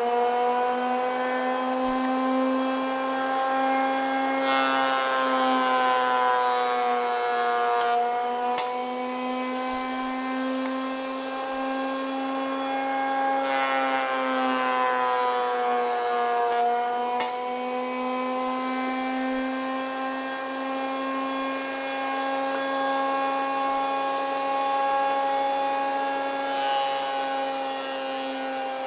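Jointer running, its motor and cutterhead giving a steady whine with strong overtones that finishes rising to speed in the first couple of seconds. Three times, about four seconds in, about thirteen seconds in and near the end, a board is fed across the cutterhead, adding the noise of the knives cutting wood for three or four seconds, and the pitch sags slightly under the load.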